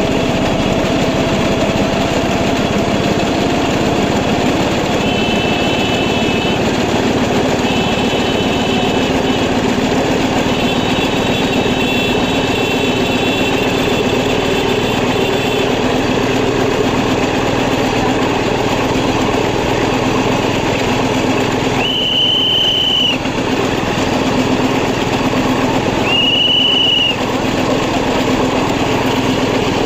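A small motor running steadily with an even hum, broken twice near the end by a short, high, steady tone lasting about a second.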